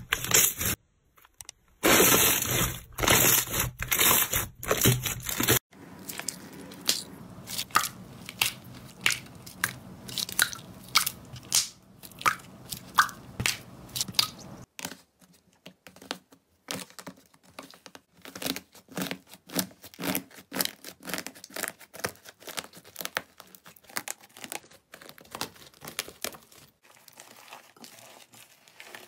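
Hands pressing, squeezing and kneading slime, giving a steady run of sticky clicks and pops; in the last half the slime has a dried, flaky crust that crackles and crunches as it is broken up.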